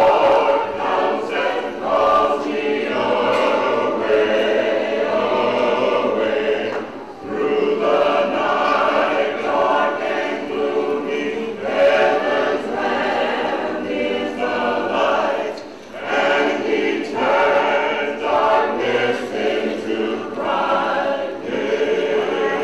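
Mixed gospel choir of men's and women's voices singing together, phrase after phrase, with brief dips between phrases about seven and sixteen seconds in.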